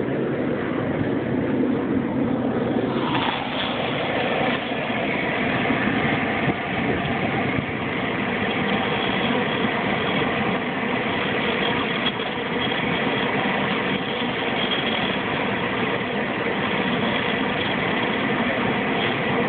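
Small gas-turbine engines of radio-controlled model jets running steadily, a high whine over a continuous rushing noise, which picks up about three seconds in.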